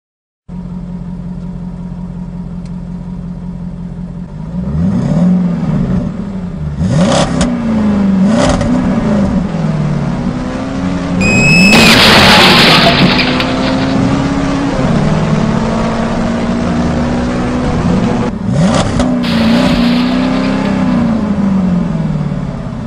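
Rally car engine sound effect: a steady idle, then revs rising and falling again and again through gear changes, with a couple of sharp cracks. About eleven seconds in comes a short high squeal and a loud rush of noise, the loudest part.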